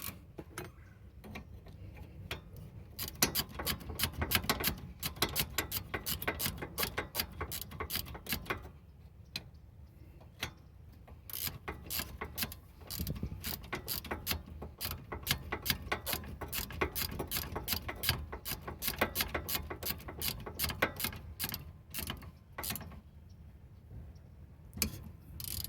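Hand ratchet clicking in rapid runs with short pauses, as the brake caliper bolts are run in and tightened.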